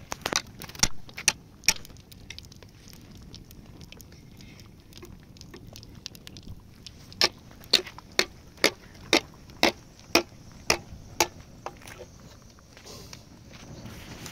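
Sharp knocks of a wooden stick being struck against something on the ground: a few uneven ones at the start, then a steady run of about nine, roughly two a second, in the middle.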